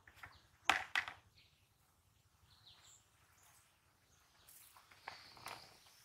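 Outdoor rural ambience with birds chirping. Two short, loud sounds come about a second in, and two fainter ones near the end.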